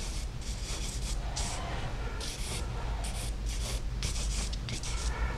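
A stick of charcoal scratching across drawing paper in a quick run of short, irregular strokes, over a low steady hum.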